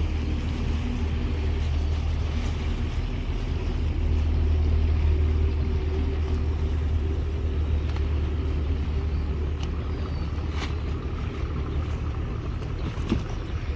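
A motor running steadily: a low, even rumble with a few faint clicks.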